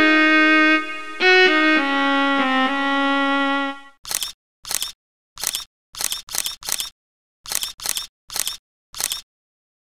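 Background music with held, pitched notes that stops about four seconds in, followed by about ten camera shutter clicks at uneven intervals over the next five seconds.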